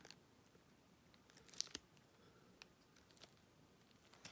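Near silence, with a few faint clicks and soft rustles from light handling, clustered about a second and a half in.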